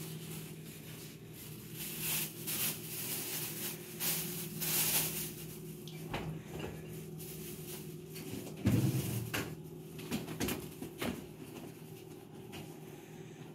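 Rustling and light knocks of household items being handled at a kitchen counter and refrigerator, with one louder thud about two-thirds of the way through, over a steady low hum.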